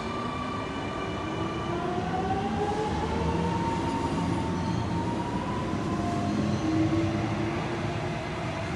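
Sydney double-deck electric train departing the platform: its traction motors whine, rising in pitch as it accelerates, over the rumble of the wheels on the rails.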